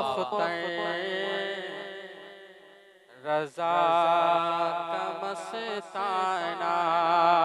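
A man's voice singing a devotional naat through a microphone, holding long drawn-out notes without words. The note fades nearly away about three seconds in, and after a short break another long held note begins.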